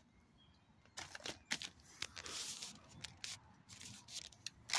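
MRE flameless ration heater's plastic bag rustling and crinkling as it is handled, a run of short crackles and taps starting about a second in.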